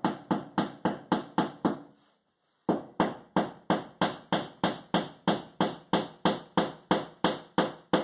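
Rapid, even tapping, about three to four knocks a second, as plastic wall anchors are driven into pre-drilled holes in the wall without a hammer. The tapping stops briefly about two seconds in, then carries on.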